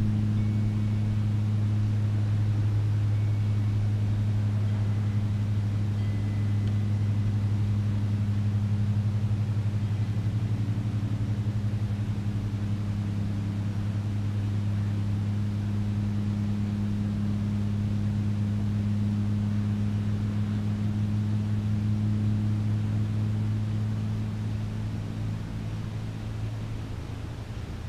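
A steady low mechanical hum holding one pitch, fading over the last few seconds.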